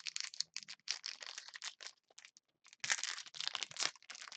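Crinkling and tearing of a trading-card pack wrapper being opened by hand: a run of short crackles with a longer, denser burst about three seconds in.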